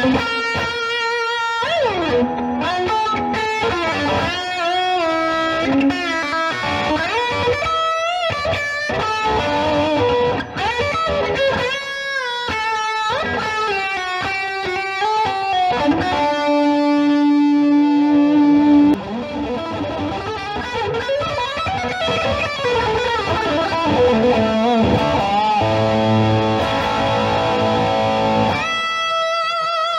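Paul Reed Smith Private Stock Custom 24 electric guitar played solo: melodic lead lines with string bends and vibrato, a long held note about halfway through, and a few sustained chords near the end.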